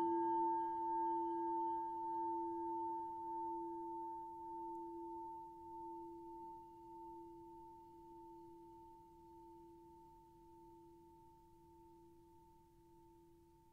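A struck meditation bowl bell rings out and slowly dies away. Two steady tones wobble gently in loudness, while the higher overtones fade in the first few seconds, until the ring is barely audible at the end.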